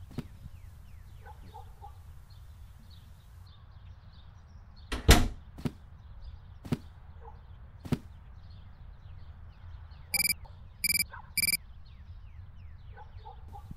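A heavy thump about five seconds in, followed by a few sharp clicks. Near the end come three identical short electronic beeps, evenly spaced, like a mobile phone's key tones.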